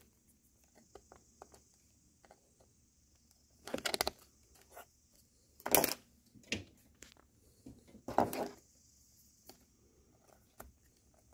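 Small screwdriver tip scraping and clicking against the plastic battery bay of a ThinkPad T460 laptop while prying at a stuck rubber stopper: scattered light clicks, with three louder short rattling bursts about four, six and eight seconds in.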